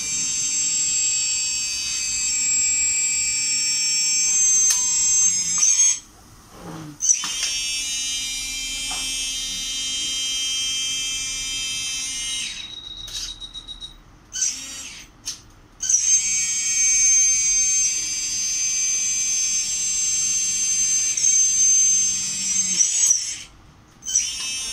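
LESU three-way RC dump truck's tipping mechanism running with a high electric whine, in several spells of a few seconds that cut out and start again as the bed tips.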